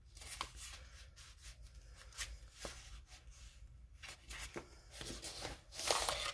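Rustling and crinkling of a small kraft-paper pillow box being opened and handled, with scattered light clicks and a louder rustle near the end.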